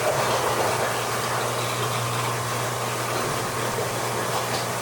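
Aquarium sump return pump running with a steady electrical hum over a haze of rushing water, as it draws the sump down faster than the overflow drain refills it.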